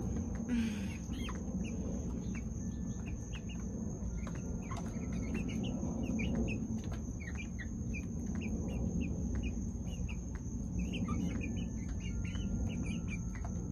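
Young chickens, about seven and a half weeks old, peeping and chirping: many short, high cheeps scattered throughout.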